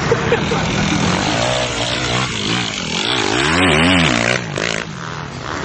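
Dirt bike engine revving up and down several times under hard riding, loudest about three to four seconds in, then easing off, with other bikes running in the background.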